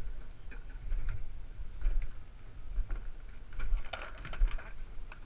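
Footsteps of ski boots climbing the steps of a ski-jump start tower: dull thumps a little under a second apart, with sharp clicks and knocks, most of them about four seconds in.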